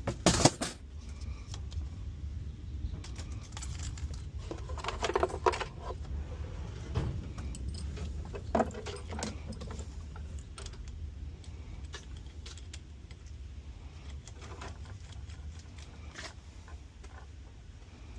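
Irregular metallic clinks and rattles, loudest in a cluster at the start and again twice mid-way, over a steady low hum.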